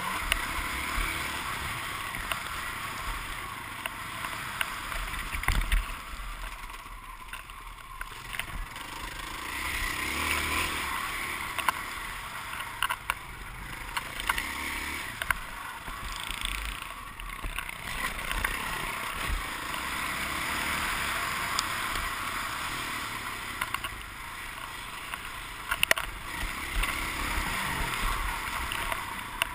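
Motocross bike engine heard on board while racing over a dirt track, rising and falling with the throttle, with wind on the microphone and scattered sharp knocks from bumps and flying dirt.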